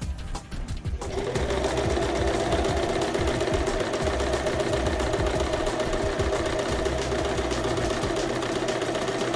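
Electric domestic sewing machine stitching fabric. It starts with a few separate stitches, then runs steadily at speed from about a second in. Background music plays underneath.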